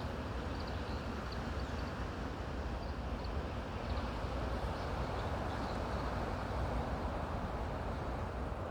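Steady rush of wind through forest trees, with faint, short high bird chirps here and there.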